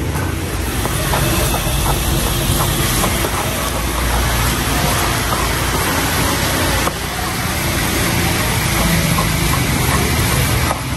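Stone pestle crushing and scraping green chilies and shallots against a stone mortar (ulekan and cobek), small gritty knocks and rubs, over a loud steady noisy background.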